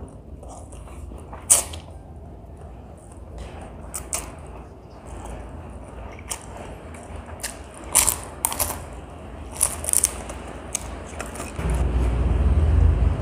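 A person eating noodles: chewing with scattered sharp clicks and taps of utensils, over a low steady hum that gets louder near the end.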